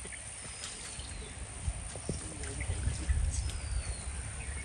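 Stream water lightly stirred and sloshing around a man groping with his hands in a muddy creek bank, under a low rumble that grows louder past the middle. Two thin high whistles slide downward, one early and one past the middle.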